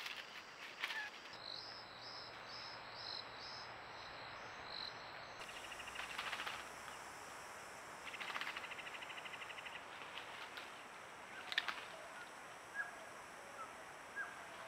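Outdoor forest ambience of small animal calls: a high call repeated about twice a second for the first few seconds, then two bursts of rapid trilling and scattered short chirps, with one sharp click late on.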